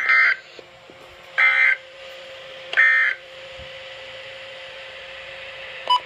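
NOAA Weather Radio sounding the three short end-of-message SAME data bursts that close a Required Weekly Test, a second and a half apart. Between and after them a faint steady tone runs on, and a brief beep comes near the end.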